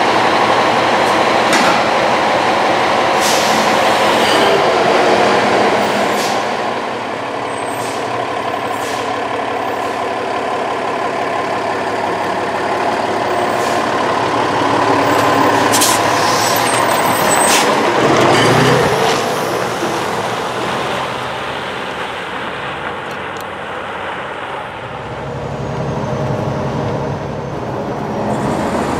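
A 2,500-gallon fire tanker truck on a Spartan chassis, its diesel engine running as it pulls out and drives, with a few short, sharp hisses from its air brakes.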